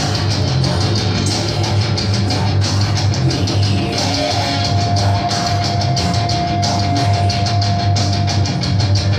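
Rock music with guitar and drums, with a long held note through the middle.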